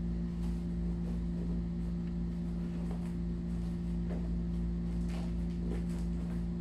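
A steady low hum, with a few faint soft taps of hands and feet on a foam play mat.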